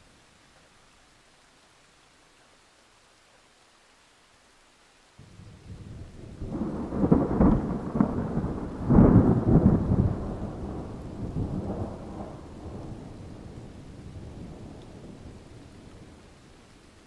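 A peal of thunder breaks in suddenly about five seconds in, swells to two loud rumbling peaks, then rolls away slowly over about ten seconds, over a faint steady hiss of rain.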